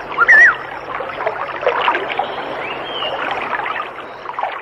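Ambience track of running, gurgling water, with short high warbling whistles over it.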